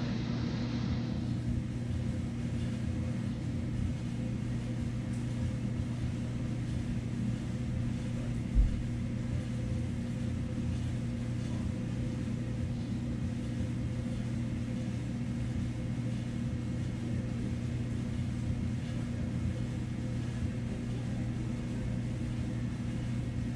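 Steady low machine hum with a constant droning tone, and one dull low thump a little over eight seconds in.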